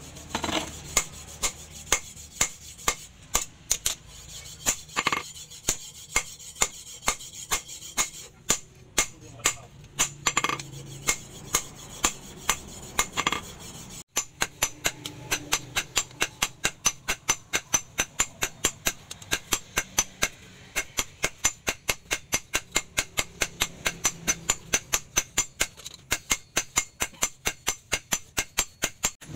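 Hand hammer striking a red-hot steel knife blade on a steel stake anvil, steady blows a few a second, each with a bright metallic ring. About halfway there is a short break, after which the blows come faster.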